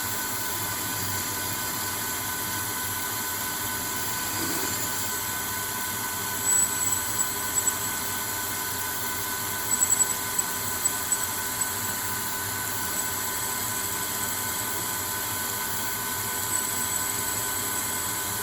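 Proto-Trak CNC lathe cutting D2 tool steel with a grooving tool under spray mist coolant: a steady hiss and machine hum, with a few brief high-pitched squeals about a third and about halfway through.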